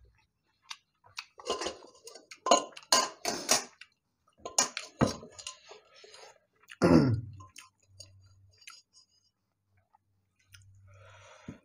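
Close-miked chewing of a mouthful of rice and fried food, with a run of sharp crunches. About seven seconds in there is a short falling hum from the throat.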